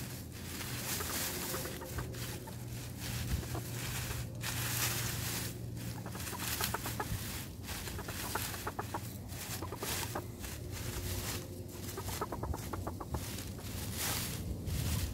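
Hens clucking softly while they scratch and burrow through a deep pile of dry oak leaves, the leaves rustling and crackling throughout.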